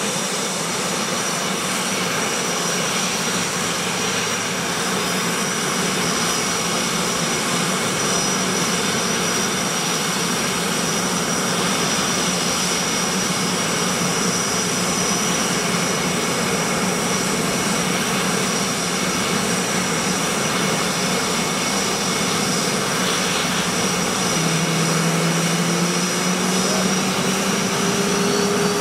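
Turbofan engines of KAI T-50B Golden Eagle jets running on the ground: a steady jet roar with a constant high whine. About 24 seconds in, a lower tone comes in and slowly rises in pitch.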